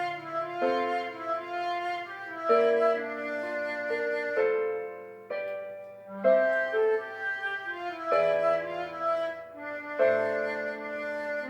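Music: a harmonica melody played over a pop instrumental backing track with piano, held chords changing every second or two.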